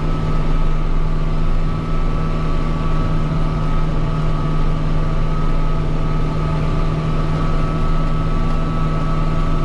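Kubota M6040 tractor's four-cylinder diesel engine running steadily while plowing snow, a constant drone with a steady high whine above it.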